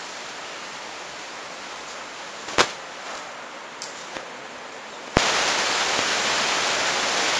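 Quiet room hiss with one sharp click about two and a half seconds in and two small ticks after it; a little after five seconds a much louder steady hiss starts abruptly with a click.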